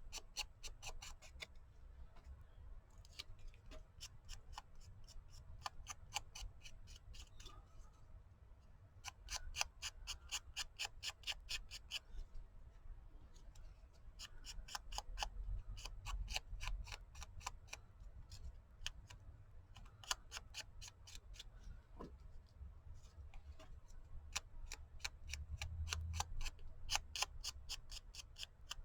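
Ink blending tool dabbed rapidly onto rice paper, making quick trains of light taps, about eight to ten a second, in bursts of a second or three with short pauses between.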